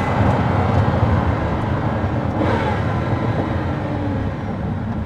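Inside the cabin of a moving Pagani Huayra BC: its twin-turbo V12 runs steadily under the rumble of tyre and road noise.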